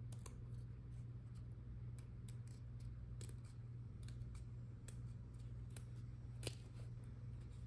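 Small scissors snipping through a decal sheet: scattered soft clicks and snips, with one louder snip about six and a half seconds in, over a steady low hum.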